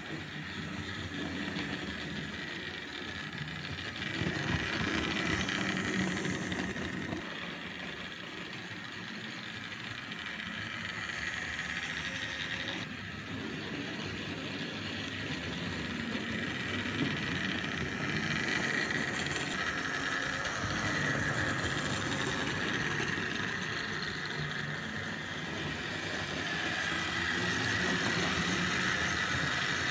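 Tri-ang R.153 saddle tank model locomotive running under power, its small electric motor and gears whining steadily, with the wheels rattling along the track. It gets louder as the engine comes closer, about four seconds in and again near the end.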